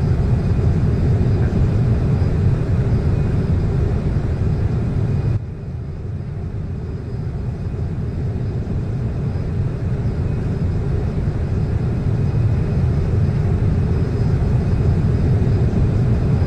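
Jet aircraft engines rumbling steadily at an airport. The rumble drops suddenly about five seconds in, then slowly builds back up.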